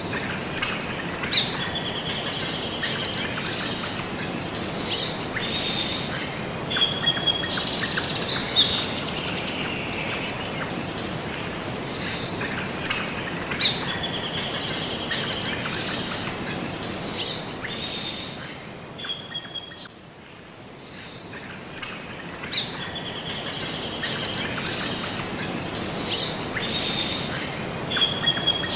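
Birds chirping and singing over a steady hiss of outdoor ambience; the same run of calls comes round again about every eleven seconds.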